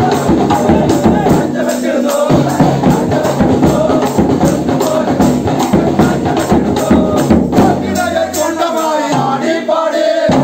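Christmas carol music: large stick-beaten drums keeping a fast, steady beat while a group of men sing along.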